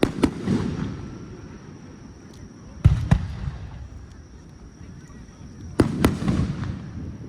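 Aerial fireworks shells bursting: three pairs of sharp bangs about three seconds apart, each bang followed by a low rolling rumble.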